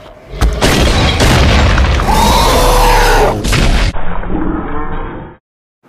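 Sound effect of a snow avalanche rushing in: a loud whoosh over a deep rumble that thins out and then cuts off abruptly.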